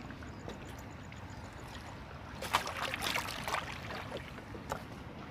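Steady lapping and trickling of water, with a short cluster of clicks and crackles about halfway through and one more click near the end.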